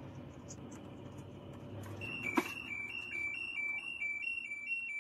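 Washing machine's electronic alarm beeping in an alternating two-tone pattern, the warning that the lid has been opened and the spin stopped by the lid-switch protection. A low hum of the slowing drum comes first, with a click as the beeping starts and a knock near the end.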